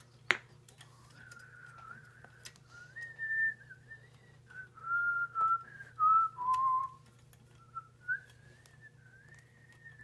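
A person whistling a wandering tune, the pitch stepping up and down with short breaks. There is a sharp click just after the start.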